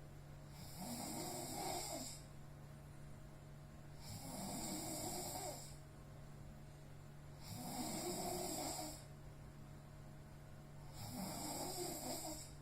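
A sleeping person snoring heavily: four long snores, each lasting about a second and a half, coming roughly every three and a half seconds.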